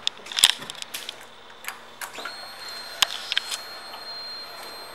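A few sharp clicks and knocks, then, about two seconds in, a steady high electric whine that runs for about three seconds and then cuts off. It fits the Suzuki V-Strom's fuel pump priming as the ignition is switched on, before the engine is started.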